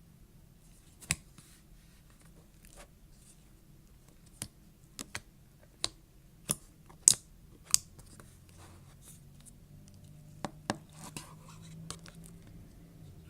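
Slime being squeezed and pressed by hand, giving about a dozen sharp clicks and pops at irregular intervals, the loudest about seven seconds in.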